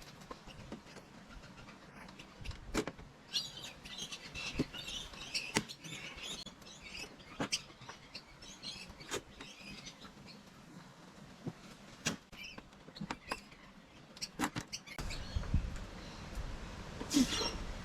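Hand pop-rivet gun setting rivets through a sail track, a sharp click every second or two. Faint bird chirping in the background for a few seconds.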